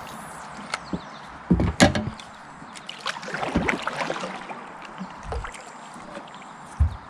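Hollow knocks and thumps of gear against a small fishing boat, with a burst of clattering clicks in the middle, over a steady background rush. The loudest thumps come about one and a half to two seconds in.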